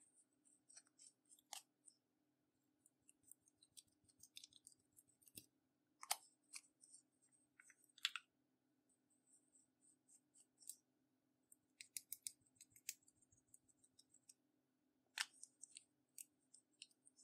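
Faint, irregular sticky clicks and small pops from clear slime being pressed and stretched by hand, with a few sharper clicks now and then.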